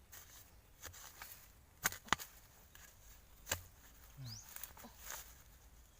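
A few sharp woody cracks and knocks, three loud ones close together in the middle among fainter clicks, as stems and brush are chopped or snapped while foraging for bamboo shoots.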